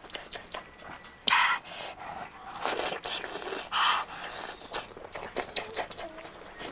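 Close-miked eating of spicy sauced chicken with enoki mushrooms: wet chewing and small mouth clicks, broken by three short, loud slurping sucks in the first four seconds.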